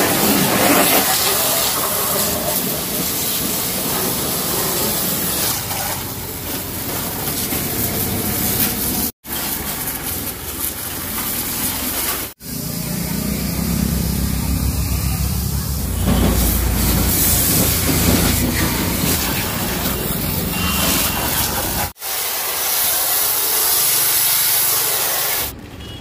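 High-pressure car-wash jet spraying water onto a car's wheels and body: a steady hissing spray with a low rumble through the middle. It cuts out for an instant three times.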